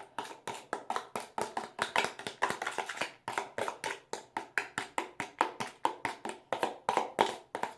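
Homemade dish-soap-and-salt slime being worked, giving a quick, even run of wet taps or slaps, about five a second.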